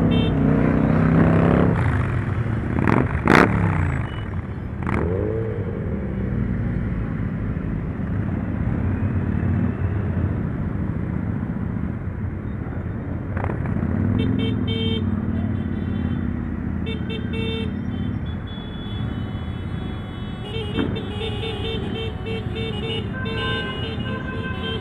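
Motorcycle engines running in a large, slow-moving pack of bikes, with a single sharp crack about three seconds in. Vehicle horns toot on and off in the second half, steadier near the end.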